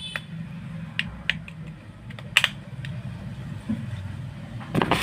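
Light, sharp clicks and taps of metal tweezers working on a phone's small parts, about five scattered over a couple of seconds, the loudest near the middle, over a low steady hum.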